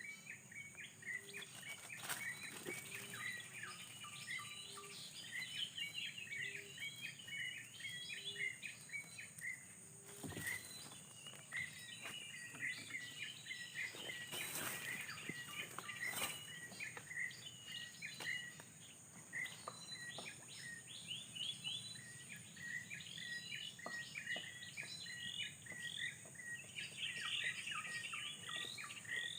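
Small birds chirping and twittering, many short high notes, over a steady high-pitched drone; a lower call repeats about every second and a half during the first third.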